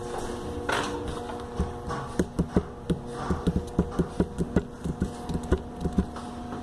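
Quick footsteps, about four knocks a second, for a few seconds, over a faint steady hum of a few tones.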